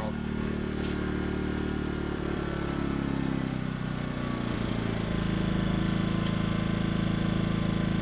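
Smarter Tools 2000-watt inverter generator with a Yamaha MZ80 engine running. About two seconds in, the smart throttle takes over and the engine slows, its pitch falling until it settles into a steady lower idle by about the middle. It runs a little rough, which the owner puts down to year-old gasoline.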